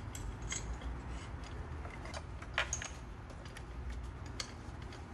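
Light metal clicks and taps of bolts and spacers being fitted to a steel injector-removal bar on the engine, with one sharper click about two and a half seconds in.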